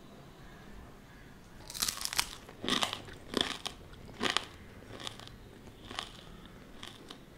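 Someone biting into and chewing a crispy deep-fried pepper vada (urad dal fritter): loud crisp crunches begin about two seconds in, then become fainter and further apart as the chewing goes on.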